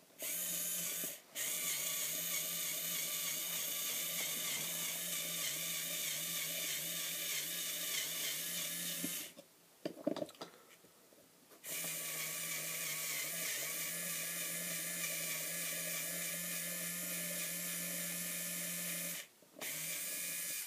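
Mastercraft mini power screwdriver's small electric motor and gearbox running with a steady, even-pitched whine. It runs in long stretches, stopping about nine seconds in for a few clicks, then running again for about eight seconds, with brief stops near the start and end.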